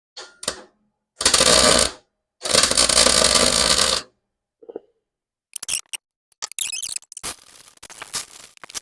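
Two bursts of electric welding, tack welds laying a wheel hub center into a steel rim: the first short, the second about twice as long. Then a run of short clicks and knocks, metal parts being tapped and handled.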